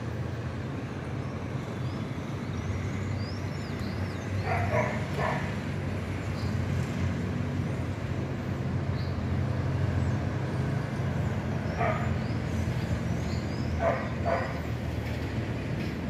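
Steady rumble of distant city traffic heard from high above the street. A dog barks a few times, twice about five seconds in, once about twelve seconds in and twice near fourteen seconds, and small birds chirp faintly.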